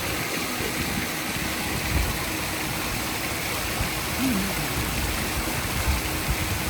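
Steady rushing noise with irregular low buffeting thumps, as of moving water with wind on the microphone.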